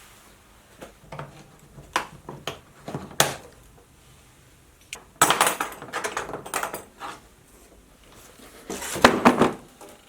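Unpacking a boxed bandsaw: scattered knocks and clicks of parts and packaging being handled, then longer bursts of rustling and scraping about five seconds in and again near the end.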